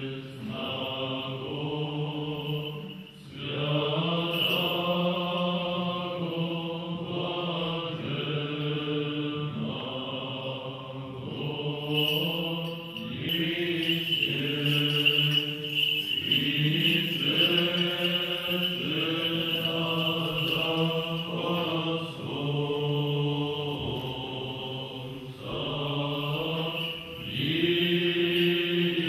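A choir singing Orthodox church chant: long held chords that move from note to note in phrases, with a short break about three seconds in and another near the end.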